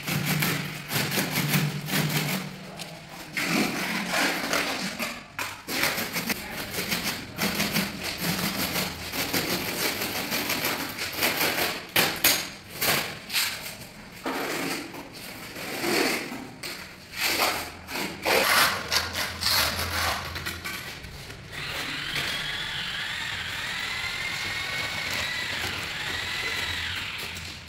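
A steel spreader box and a notched trowel scrape and comb wet cement tile adhesive across a concrete floor in irregular strokes. About three-quarters of the way through, a steady whine with a wavering pitch takes over.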